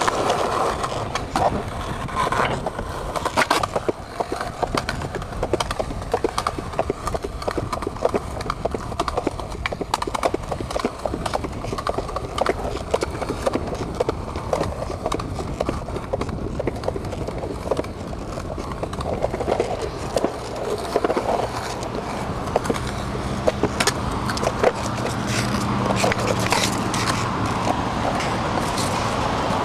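Skateboard wheels rolling on a concrete sidewalk, with frequent sharp clacks as they cross the pavement joints and cracks.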